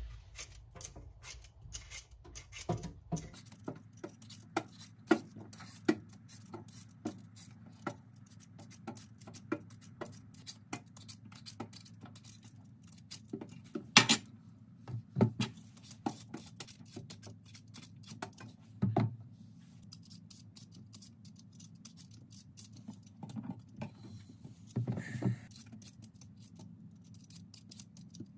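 Hand vegetable peeler scraping the skin off purple-top turnips in many quick, repeated strokes, with a few louder sharp knocks in between.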